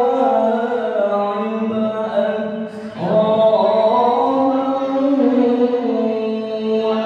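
A man's voice reciting the Quran in the melodic qiraah style, amplified through a handheld microphone, with long held and ornamented notes. He pauses briefly for breath about three seconds in, then starts the next phrase.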